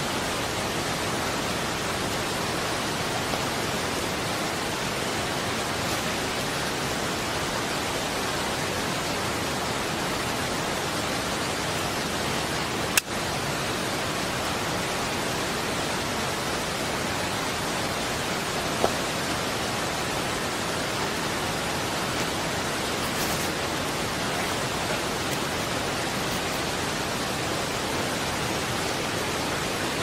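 Steady rushing hiss of water, with two sharp clicks partway through.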